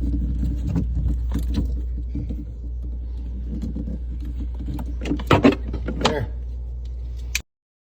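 Small clicks, taps and rattles of a screw being fitted back into a fridge's interior light cover, over a steady low hum. There are a couple of louder short sounds about five to six seconds in, and all sound cuts off abruptly near the end.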